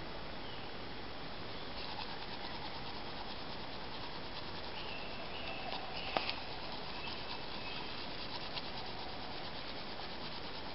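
Woodland birds calling faintly in short whistles over a steady hiss, with faint ticking and rubbing and one sharp click about six seconds in.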